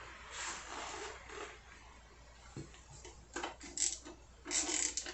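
Socket wrench turning a bolt on a motorcycle's rear wheel, backing it out turn by turn, in a few short bursts of metal clicking and scraping.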